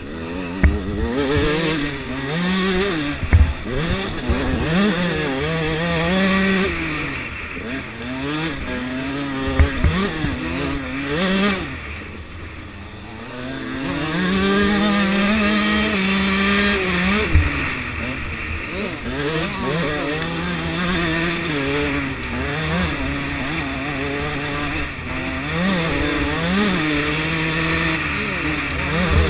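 Enduro dirt bike engine heard from the rider's helmet, revving up and down as the throttle is worked over a rough dirt track, easing off about twelve seconds in and then opening up again. Wind rush and a few sharp knocks from the bike hitting bumps.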